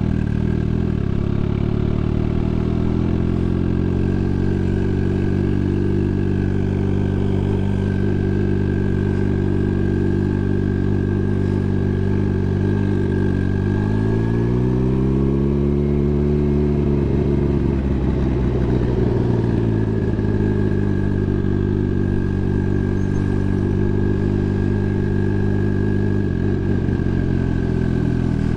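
Turbocharged Suzuki Hayabusa inline-four running at low road speed, with a thin steady whine over it. About halfway through, the revs rise briefly and fall back.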